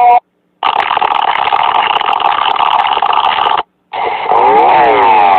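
Emergency-alert-style alarm sounds cut one after another: a harsh, static-like buzz for about three seconds, a brief silence, then a siren wail with several tones gliding up and down across each other. The audio is band-limited and loud.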